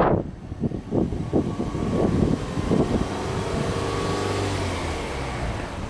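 Exhaust note of a Subaru Legacy Touring Wagon 2.0GT's turbocharged flat-four engine. The engine is free-revved in a few short blips, then runs at a steady note whose pitch eases down near the end.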